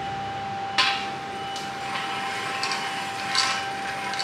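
A steel flat bar knocks down onto a roller stand about a second in, then scrapes and clanks as it is slid along the roller, over a steady high whine.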